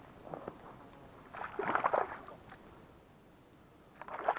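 Water splashing by a small boat, in two short bouts: a louder one about a second and a half in and a smaller one near the end.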